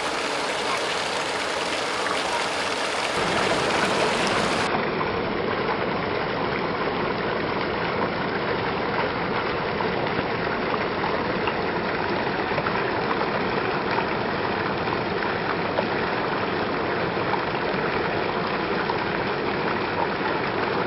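Steady rush of water spilling and splashing in an outdoor fountain pool. About four seconds in, the sound becomes fuller and deeper.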